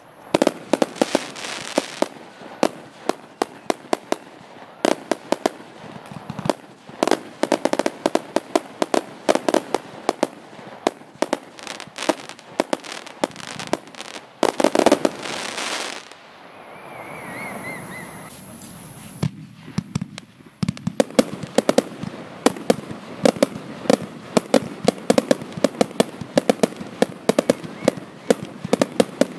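F2 consumer firework cakes firing in rapid volleys of shots and bursts. About halfway through comes a loud rushing stretch, then a short lull with a faint warbling whistle. Dense rapid firing picks up again near the end.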